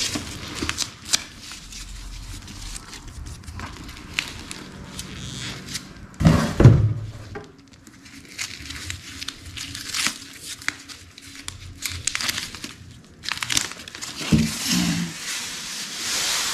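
Crinkling, rustling and light tearing of white protective wrapping being pulled off a new leather bag strap by hand, in uneven bursts with a louder handling noise about six seconds in.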